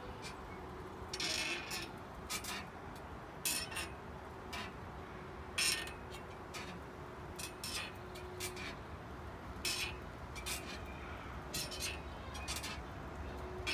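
Porch swing creaking as it rocks back and forth: short scraping squeaks, roughly one a second, unevenly spaced.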